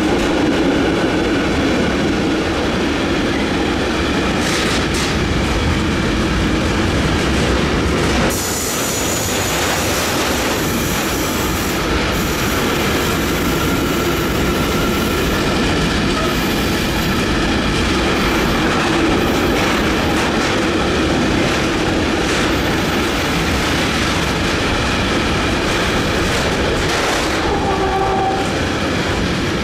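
Container freight wagons rolling past on the track: a steady rumble with clattering over the rail joints and thin squeals from the wheels. The noise begins to fade at the very end as the last wagon goes by.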